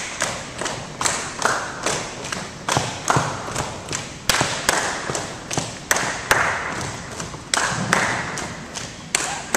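Tinikling poles being knocked on the wooden gym floor and against each other in a steady rhythm, about two to three sharp knocks a second, each echoing briefly.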